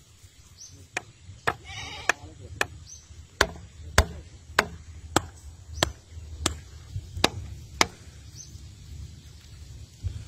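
A hammer driving wooden stakes into mud: about a dozen sharp knocks, roughly two a second, stopping about eight seconds in.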